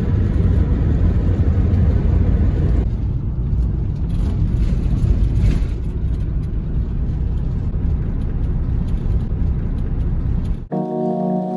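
A car driving at road speed, heard from inside the cabin: a steady low rumble of tyres and engine. Near the end it cuts off suddenly and music with sustained, ringing notes begins.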